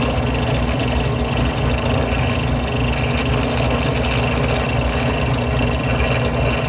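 Small benchtop drill press running steadily, its motor humming while a 1/8-inch glass drill bit grinds through glass in a pan of water.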